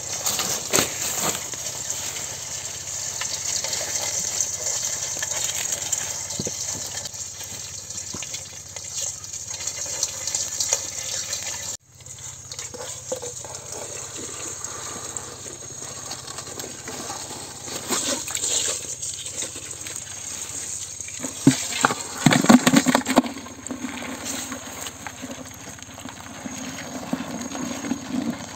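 Crabs being scooped by hand out of a water-filled steel bowl sunk in mud: irregular splashing and scraping over a steady high hiss, with a burst of louder knocks and splashes a little past the middle.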